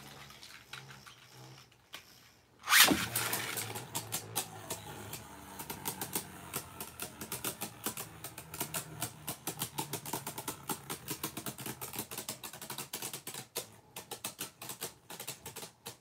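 A Beyblade Burst spinning top whirs alone on the stadium floor. About three seconds in a second top is launched in with a loud clack, and then the two tops clatter against each other and the stadium walls with a rapid, irregular run of plastic-and-metal clicks.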